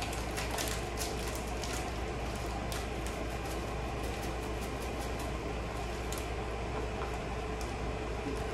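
Steady low hum of room noise, with a few faint clicks and crinkles as a small plastic candy packet is handled.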